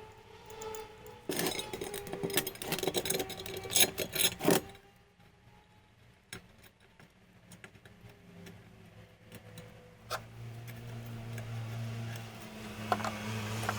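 Metalworking sounds: a few seconds of dense metallic clattering and scraping, then scattered single clicks, and about ten seconds in a low, steady motor hum starts up.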